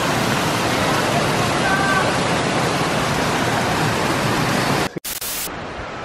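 Neer Garh waterfall cascading down a rock chute: a steady, loud rush of falling water. It cuts off suddenly about five seconds in, leaving quieter open-air sound.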